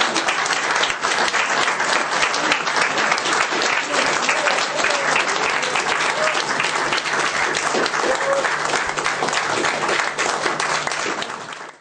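Audience applauding steadily, with a few voices over the clapping.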